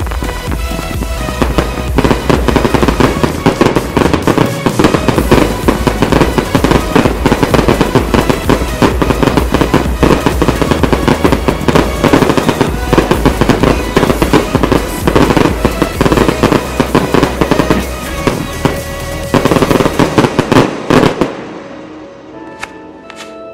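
Fireworks display: a dense barrage of rapid bursts, reports and crackle over music. About 21 seconds in, the barrage stops abruptly, leaving the music and a few last pops.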